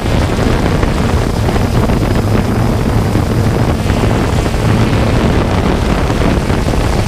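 3DR Solo quadcopter's motors and propellers whirring steadily in flight, heard from its onboard camera, with wind rushing over the microphone.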